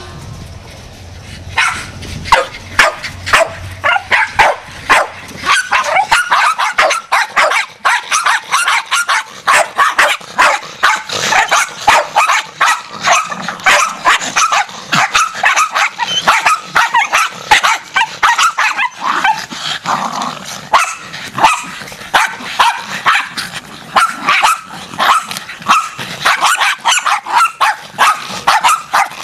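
A pack of Jack Russell terriers barking all at once, many sharp overlapping barks each second with no break, starting about a second and a half in.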